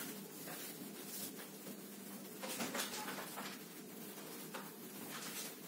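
Whiteboard duster rubbing marker off the board in a series of short, faint scraping strokes, over a steady low hum.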